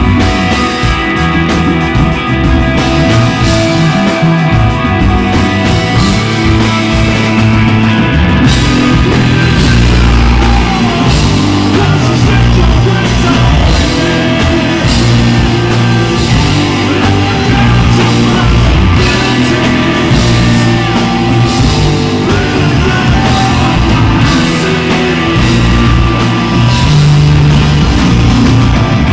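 Loud rock music with guitars, drums and singing.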